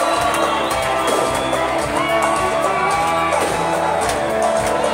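Loud live band music over a club sound system, with a sung melody and plucked-string instrument lines over a steady beat, and a packed audience shouting along.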